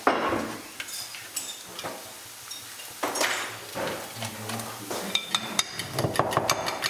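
A utensil scraping crème fraîche out of a plastic tub and tapping against a ceramic mixing bowl, then beating eggs in the bowl with rapid clicks against its side from about five seconds in.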